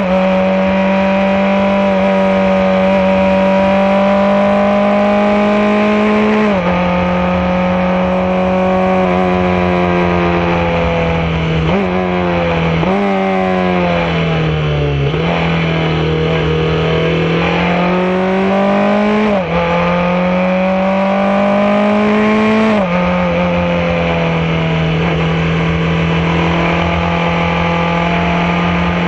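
Formula 4 race car engine at speed, heard on board. The engine note climbs slowly and drops sharply at upshifts about six seconds in and again about two-thirds of the way through. Near the middle it falls in steps as the car brakes and downshifts, then climbs again under acceleration.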